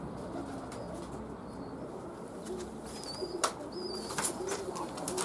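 Domestic pigeons cooing, many overlapping low calls, with a few sharp clicks and wing flaps from about three and a half seconds in as birds are handled in a wire carrier crate.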